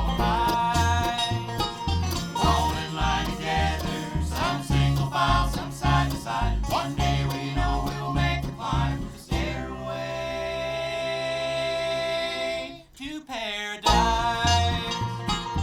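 Live bluegrass band playing an instrumental passage, with banjo and guitar picking over a steady bass pulse. About nine seconds in the band holds a long chord. It then drops out briefly with a falling slide, and the driving rhythm comes back in near the end.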